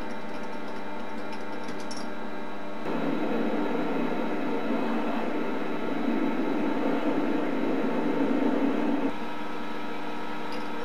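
Optimum D180x300 mini lathe running with a steady whine and hum. About three seconds in, a drill held in the tailstock chuck cuts into the spinning workpiece, adding a louder, rough cutting noise that cuts off suddenly near the end.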